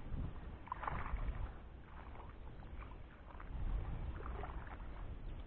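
Light splashing and sloshing of water at the edge of a dam, a few short splashes about a second in and again near the end, over a low wind rumble on the microphone.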